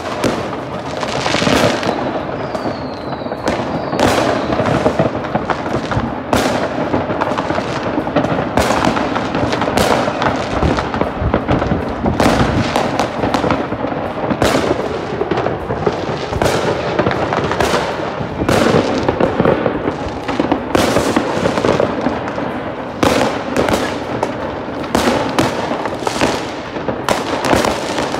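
Fireworks going off across a neighbourhood: a continuous barrage of bangs, pops and crackling from many rockets and firecrackers at once, with a brief falling whistle about three seconds in.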